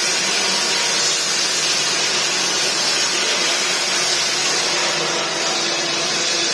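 Steady, even hiss of workshop air machinery with a faint hum underneath.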